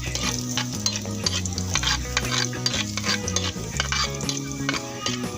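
Chopped garlic sizzling in hot oil in a pan, stirred with a utensil that scrapes and clicks against the pan again and again.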